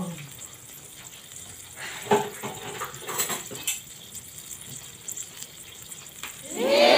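Oil heating in a nonstick frying pan on a gas burner: a faint steady hiss with a few small pops and ticks. Near the end a loud pitched sound rises in.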